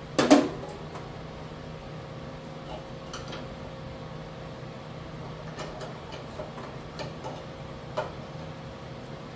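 A sharp metallic clank just after the start, then scattered light knocks and clicks as welding leads are handled and hung on a welder cart, over a steady low hum.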